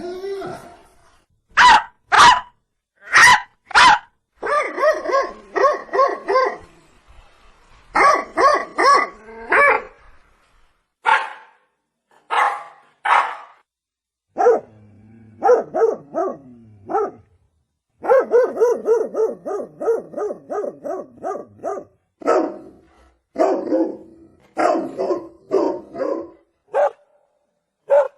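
Dog barking: a few single sharp barks, then quick runs of repeated barks separated by short pauses.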